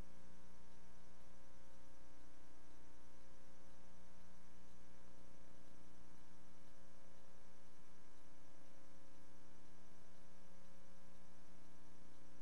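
Steady electrical mains hum with a faint hiss, unchanging throughout: the background noise of a soundless archival film transfer.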